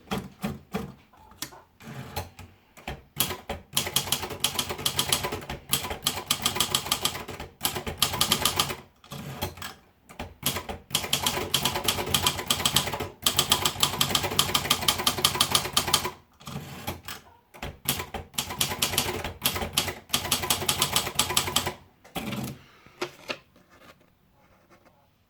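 Imperial Signet manual typewriter being typed on: rapid key strikes in runs of several seconds, broken by short pauses, thinning out to a few scattered strikes near the end.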